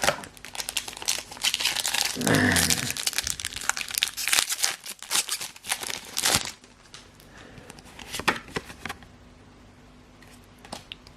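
Foil booster pack wrapper crinkling and being torn open, a dense crackle for the first six seconds or so, then quieter with a few scattered clicks.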